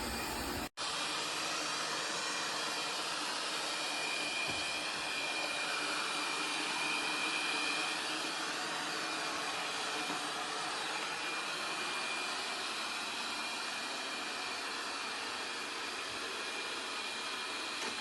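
Laresar robot vacuum's suction motor running steadily, with a thin high whine over the airflow noise. It is broken by a brief dropout under a second in.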